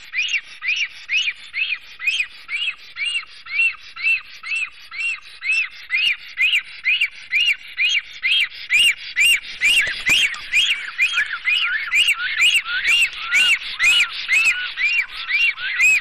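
Black storks at the nest giving a rapid, steady series of whistled notes, about three a second, each note rising and then falling. From about halfway in, a second, lower series of notes joins the first, as a pair calls together during courtship and mating.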